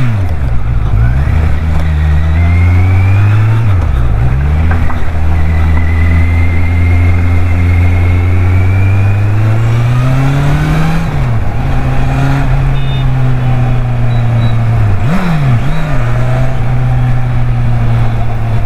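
Kawasaki Z800's inline-four engine, fitted with an aftermarket exhaust, running under way. Its pitch climbs slowly as the bike gathers speed. Around four, eleven and fifteen seconds in, the revs drop sharply and pick up again.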